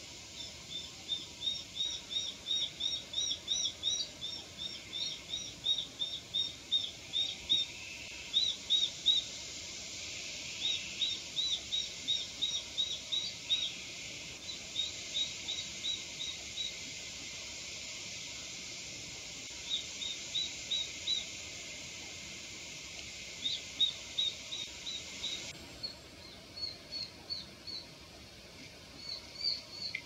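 Juvenile Japanese sparrowhawk (Accipiter gularis) calling: runs of short, high, rapidly repeated notes, about four a second, coming in bursts separated by pauses of a second or more.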